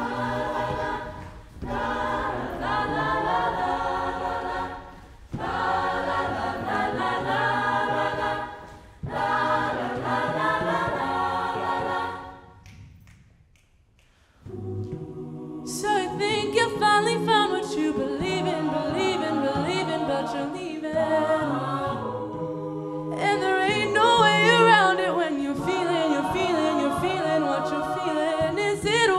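A cappella group singing without instruments: three held chords, a brief pause about thirteen seconds in, then a livelier passage with one voice gliding over the group's backing.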